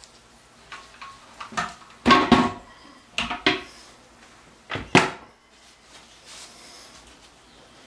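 Toilet seat being popped off its hinges on a porcelain toilet bowl and handled: a series of sharp clacks and knocks, the loudest about five seconds in.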